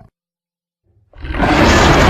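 The tail of a monster roar sound effect cuts off, about a second of silence follows, then another loud, harsh roar-like creature sound effect swells in just after a second in and holds.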